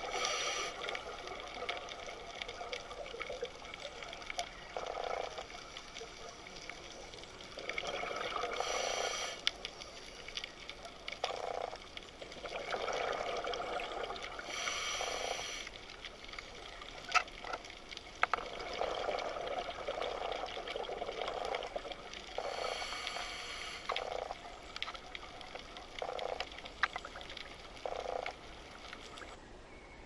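Underwater recording: a steady wash of water noise with bursts of bubbling every few seconds, some carrying a brief hiss, and a few sharp clicks in the middle.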